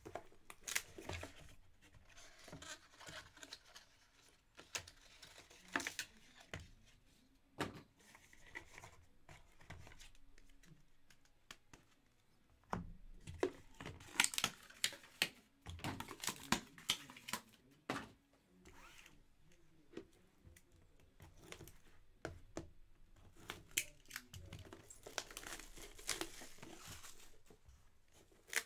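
Packaging on a trading-card hobby box being torn and crinkled as the box is unwrapped and opened, with scratchy rustling and sharp taps of cardboard being handled. It comes in irregular bursts that are loudest about halfway through and again near the end.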